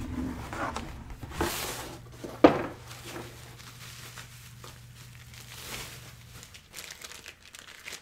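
Packing material crinkling and rustling as a cardboard shipping box is unpacked by hand, with a sharp snap about two and a half seconds in.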